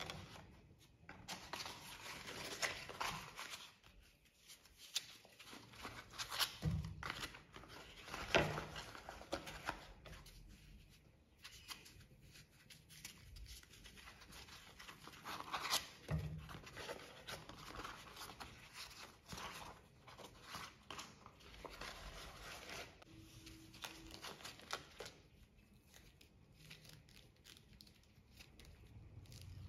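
Fresh green corn husks being pulled and torn off the ears by hand: faint, irregular crisp tearing and rustling.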